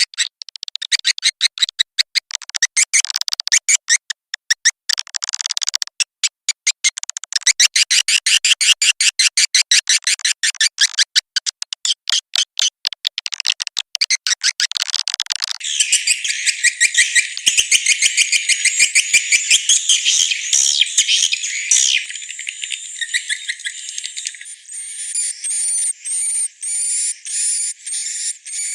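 Swiftlet lure call, a recorded swiftlet twittering track played to draw swiftlets into a nesting house: fast strings of high chirps. About halfway through it changes to a thinner, denser chatter, and near the end to evenly repeated calls about two a second.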